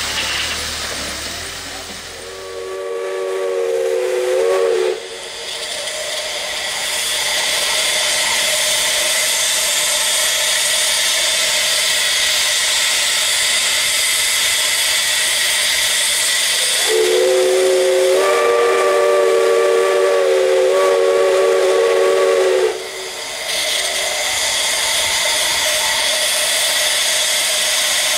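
Steam locomotive whistle blowing two blasts, each sounding several notes together: a short one a few seconds in and a longer one of about six seconds later on. Between and around the blasts, steam hisses steadily from the locomotive.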